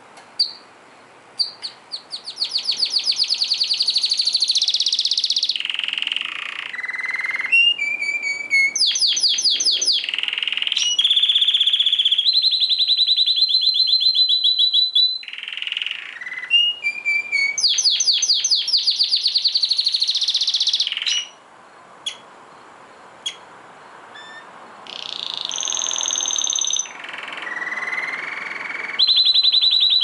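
Canary singing a long song of high, fast trills and rolling phrases, with a short pause about two-thirds through before the song resumes.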